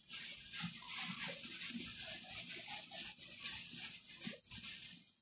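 Pot of carapulcra (papa seca stew in red sauce) cooking on a gas stove: a steady hiss with faint soft low pops, fading out near the end.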